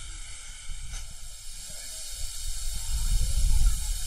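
Steady hiss of steam from the steam locomotive Swordfish as it runs around its train, with a low rumble swelling about three seconds in.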